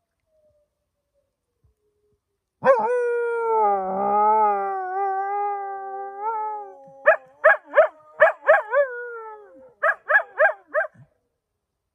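A dog howls: one long, slightly wavering howl starting about two and a half seconds in and lasting about four seconds, then a run of about nine short barks in two quick groups.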